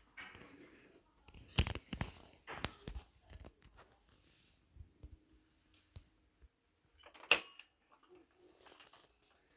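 Hard plastic clicks and knocks from a Toshiba T3200 laptop's case being handled and its keyboard folded down. A cluster of knocks comes between about one and a half and three seconds in; the loudest, sharpest click comes about seven seconds in.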